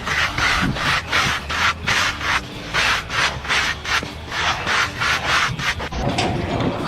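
Rapid back-and-forth scraping strokes, about three a second, stopping about six seconds in.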